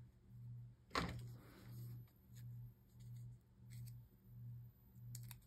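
Faint handling noise, with one sharp click about a second in and a few light ticks near the end, over a low hum that pulses about one and a half times a second.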